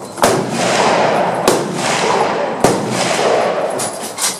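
Three rifle shots about a second and a quarter apart, each followed by a long echoing tail.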